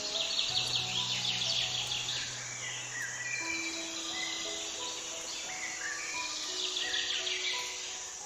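Slow background music of long held notes, under steady high insect chirring and bird-like chirps that swell near the start and again about seven seconds in.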